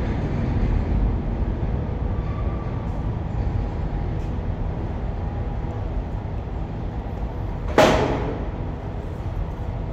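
Low, steady rumble of an R46 subway train moving slowly away down the tunnel. About eight seconds in, a single sharp bang rings out briefly.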